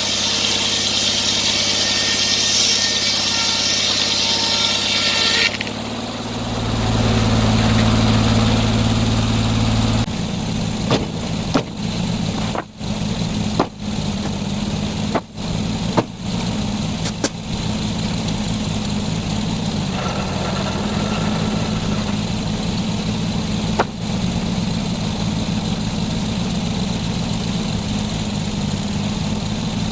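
Portable sawmill's engine running steadily, with a high whine over it that stops about five seconds in. The engine swells briefly, then a few sharp clicks follow before it settles back to a steady run.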